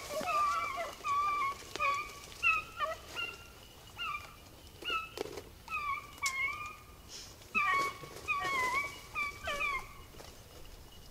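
Pack of beagles baying as they run a rabbit's track: many short, high yelping bays, several voices overlapping, coming in quick strings with brief gaps.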